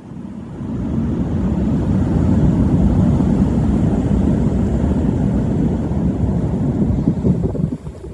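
Wind buffeting the microphone in a loud, low rumble. It builds over the first second, holds steady, then breaks up into choppy gusts near the end.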